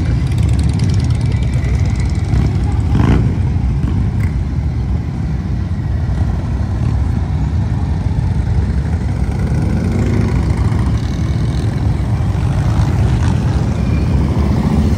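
Motorcycle engines running with a steady, loud low rumble, one engine briefly revving about three seconds in.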